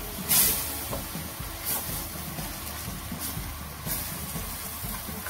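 Wooden spatula stirring and scraping sweet potato leaves and prawns around a frying pan: a few short scraping strokes, the loudest about half a second in, over a steady hiss.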